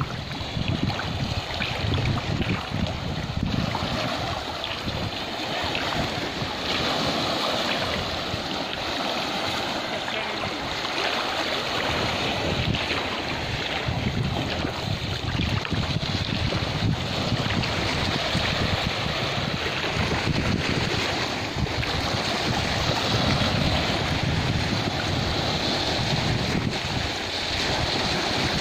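Shallow sea water washing and lapping over rocks at the shoreline in a steady wash, with wind buffeting the microphone in uneven low rumbles.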